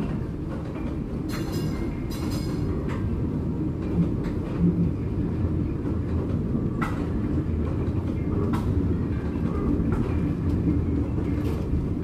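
A 1944 PCC streetcar running along its track, heard from inside the car: a steady low rumble of wheels and running gear with scattered sharp clicks, and two knocks about four seconds in.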